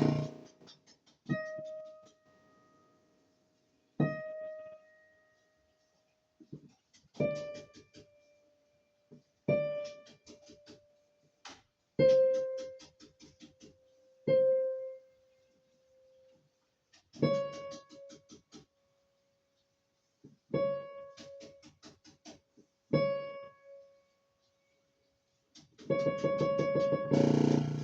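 Casio PX-350 digital piano sounding single notes one at a time, about ten strikes a few seconds apart, each note carrying a rapid rattling buzz; a louder, fuller strike comes near the end. The rattle is the knocking and rattling fault being traced to particular keys.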